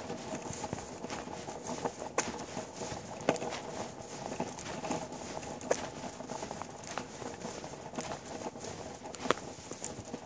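Longboard wheels rolling on tarmac, with the land paddle's tip knocking on the path every second or two as the rider pushes along; the loudest knocks come about a third of the way in and near the end.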